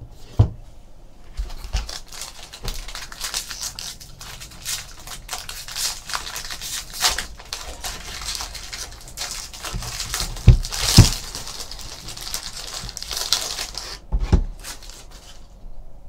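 Foil trading-card pack wrappers crinkling and tearing as packs are ripped open and the cards handled, with a few sharp thumps on the table.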